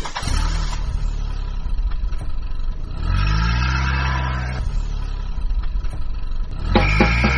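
Vehicle engine sound effect running steadily with a low rumble, revving up about three seconds in.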